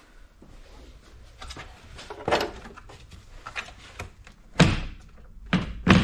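Plastic engine cover and air filter box of a VW 1.0 MPI engine being wrenched upward off its mounts: scattered clicks and rattles of plastic, then several hard thunks, the loudest in the second half.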